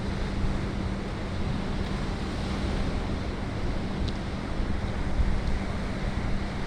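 Stormy sea surf washing in, with wind gusting on the microphone and a steady low hum underneath.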